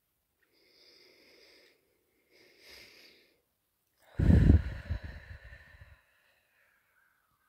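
A woman breathing deeply as a breathing exercise: two soft breaths, then a loud, long exhale about four seconds in that fades away over a couple of seconds.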